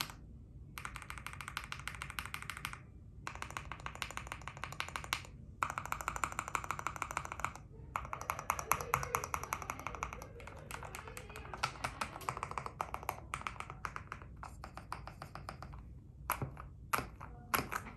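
Mechanical keyboard being typed on, with a clacky sound like marbles. Fast bursts of keystrokes a couple of seconds long with short pauses between, slowing to separate key presses after about ten seconds and a few single presses near the end.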